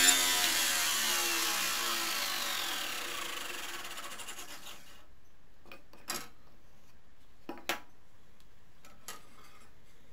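Ridgid table saw's blade and motor spinning down after being switched off, the whine falling in pitch and fading over about five seconds. A few light knocks follow as the wood is handled.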